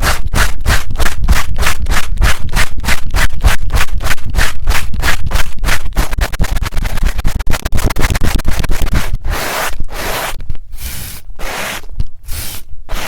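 Fast, rhythmic scratching right on a TASCAM recorder's microphones, about four strokes a second, changing about nine seconds in to slower, longer strokes.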